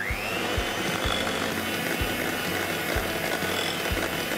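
Electric mixer starting up with a rising whine, then running steadily, whipping butter with icing sugar and cocoa powder into chocolate buttercream.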